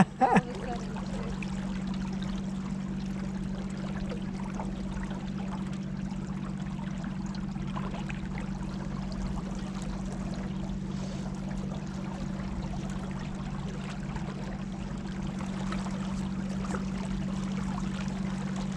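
River water trickling and lapping against the hull of a small boat on a moving current, over a steady low hum.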